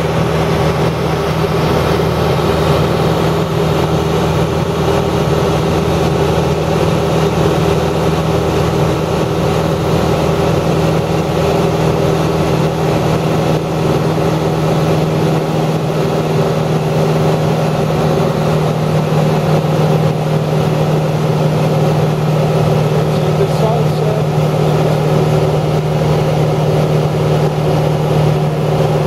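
A steady mechanical drone: a motor running at an even speed, with a constant low hum and no changes in pitch or level.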